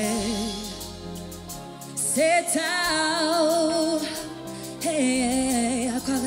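Live band music with a singer holding long notes with a wide vibrato over steady chords and drums, dipping briefly in level about a second in before picking up again.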